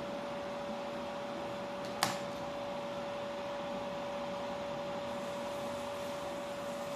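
A small electric motor running with a steady, even whine over a noisy hiss, and a single sharp click about two seconds in.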